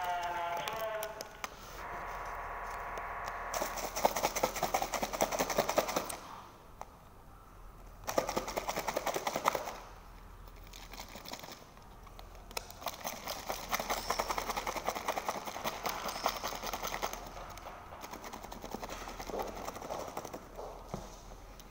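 Thin clear plastic crackling and clicking in rapid runs, in several bursts, as a plastic cup's dome lid is worked off and a plastic sauce pouch is handled.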